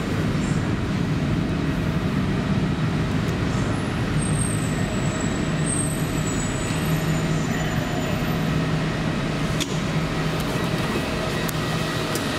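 Steady low hum and rumble inside a stationary Heathrow electric pod waiting at its station, with one sharp click about ten seconds in.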